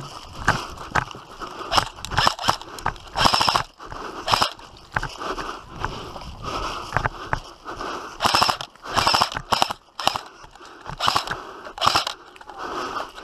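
Footsteps and gear rustling of an airsoft player moving between cover, in irregular noisy bursts with scattered sharp clicks and knocks.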